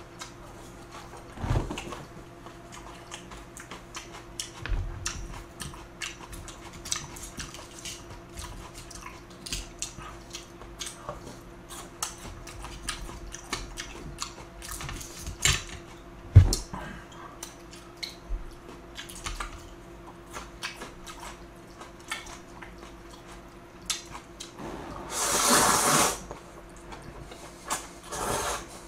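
Close-up eating of jjamppong noodle soup: wet chewing and small clicks throughout, with a long noodle slurp about 25 seconds in and a shorter one near the end.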